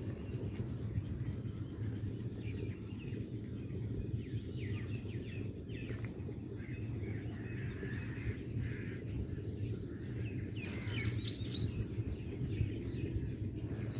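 Birds chirping, with a brighter cluster of high chirps about eleven seconds in, over a steady low rumble.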